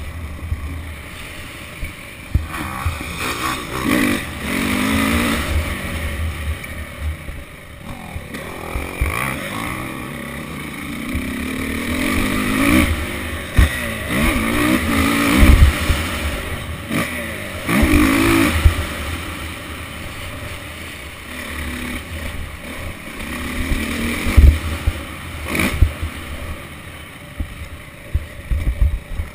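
Motocross dirt bike engine heard from the bike itself, revving up and falling back again and again as it accelerates and shifts around the track. Heavy low rumble and sharp knocks from the ride buffet the microphone.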